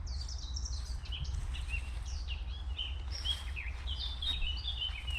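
Several small birds chirping and singing, many short quick notes overlapping, over a steady low rumble.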